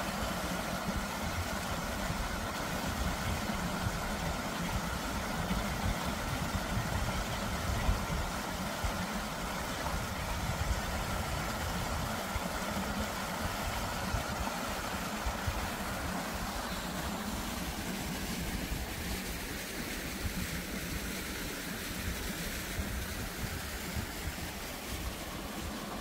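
Small mountain stream running over rocks and a little cascade: a steady rushing of water, with a low rumble underneath.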